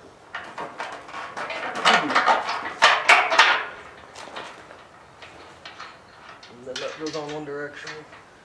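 Metal parts and hand tools clanking and rattling as they are handled, the clatter loudest about two to three and a half seconds in. Near the end, a short wordless voice sound lasting about a second.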